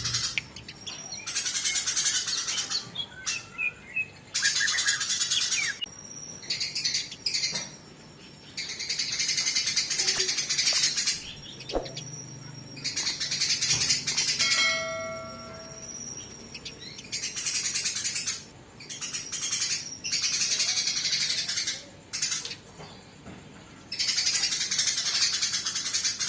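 Eurasian tree sparrows' harsh fighting chatter, coming in repeated bursts of one to three seconds with short pauses between, and a brief run of clear whistled notes about halfway through.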